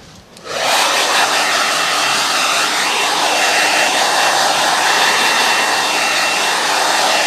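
Handheld hair dryer switched on about half a second in and blowing steadily on a freshly painted box to dry the acrylic paint: an even rush of air with a faint high whine over it.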